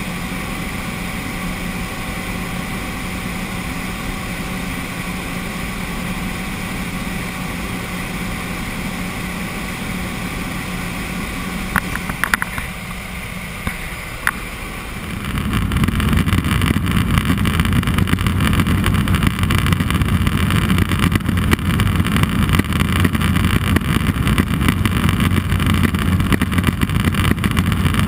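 Cessna 206 Soloy's turbine engine and propeller droning steadily, with a few clicks partway through. About halfway in the sound changes to a louder, rougher rush with a deep hum.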